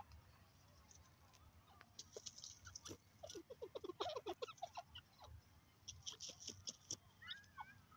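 Faint ticking and scratching of a grey francolin pecking and scratching in dry soil, coming in short clusters. A quick run of soft falling chirps comes about three to four seconds in.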